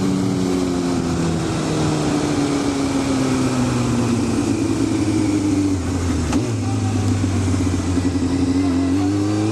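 Honda CBR600 F2's inline-four engine running under way, heard against heavy wind noise over the helmet microphone. Its note falls gradually over the first half, then climbs again near the end as the rider rolls back on the throttle.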